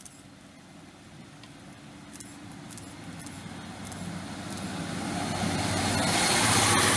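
A GWR Class 153 single-car diesel multiple unit, 153318, approaching and running past along the platform. Its underfloor diesel engine and wheels on the rails grow steadily louder and are loudest near the end.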